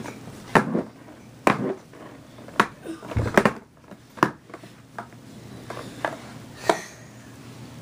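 A series of about eight sharp knocks and clicks at irregular intervals, like small hard objects being handled or struck.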